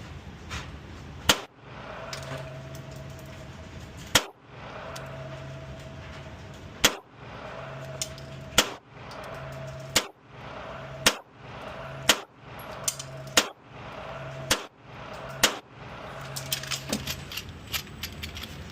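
About ten single pistol shots from a Smith & Wesson M&P Competitor, fired deliberately at one- to three-second intervals. Light rattling clicks follow near the end.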